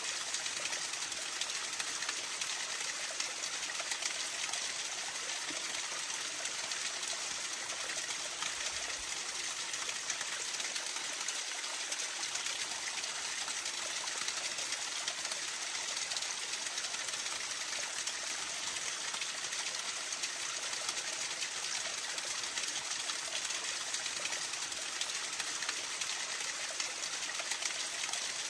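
Steady rushing of flowing water, an even hiss with no breaks or changes.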